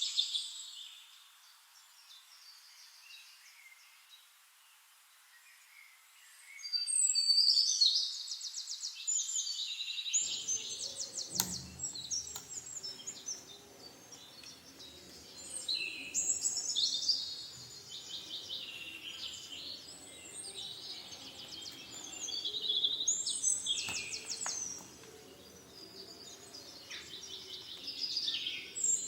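A songbird singing high, trilled phrases that repeat every several seconds, with a single sharp click about eleven seconds in.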